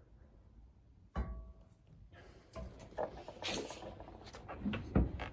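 Hands-on work with suspension parts: a sharp knock with a brief metallic ring about a second in, then scattered clunks, rustling and a thump near the end.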